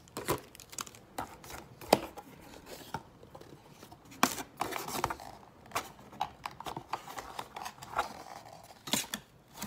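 Cardboard packaging of a GoPro box being handled and pried at: irregular scrapes and rubs with sharp clicks, the sharpest about two seconds in, again around four seconds in, and near the end.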